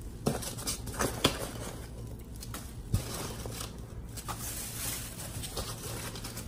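Hands rummaging through a cardboard box of packing peanuts and pulling at a plastic bag: rustling and crinkling with scattered light clicks and ticks.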